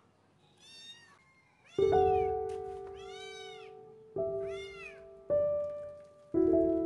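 A kitten meowing, about four high-pitched meows, over background music of held notes struck four times, each ringing on and fading.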